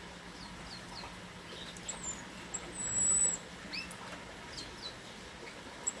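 Small finches calling in a mixed aviary of siskins, goldfinches, greenfinches and chaffinches. Scattered short upward chirps come throughout, with one thin, high whistle held for about half a second around three seconds in.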